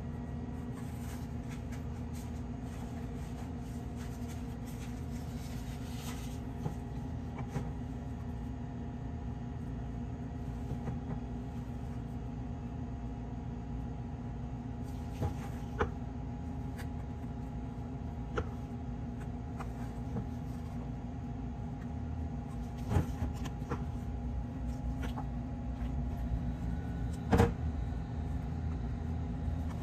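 Steady low machine hum, with a few light knocks and clicks of a silicone spatula against a stainless steel pan as cream is spread over the cookies, the loudest knock near the end.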